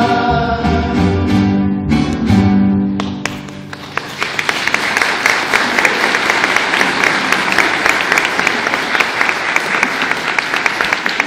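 Group singing ends about three seconds in, and a crowd's applause follows, dense and irregular.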